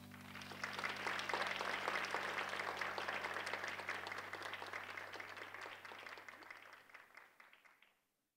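Audience applauding: the clapping swells quickly about half a second in, then tapers away and dies out near the end. The low held chord of the music fades away underneath.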